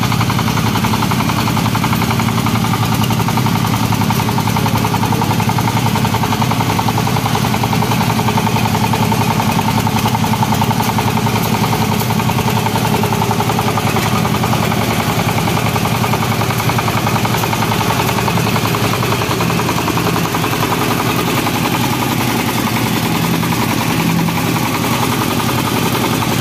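Công nông farm tractor-truck's single-cylinder diesel engine running steadily with a rapid, even chugging.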